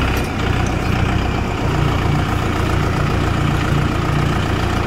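Mahindra 585 DI XP Plus tractor's four-cylinder diesel engine running steadily, its note changing slightly about a second and a half in.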